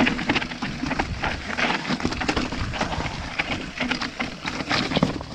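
Mountain bike descending a rocky singletrack: tyres rolling over loose stones while the bike rattles, in a dense run of irregular clicks and knocks.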